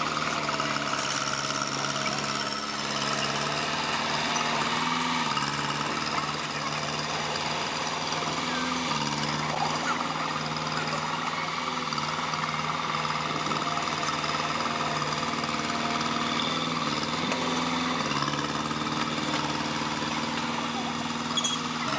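Bulldozer's diesel engine running steadily, with a knocking clatter; its pitch steps up and down a few times.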